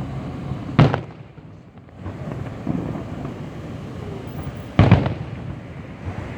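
Fireworks display: two sharp bangs of bursting shells about four seconds apart, one about a second in and one near the end, with softer bursts and a rumbling crackle between.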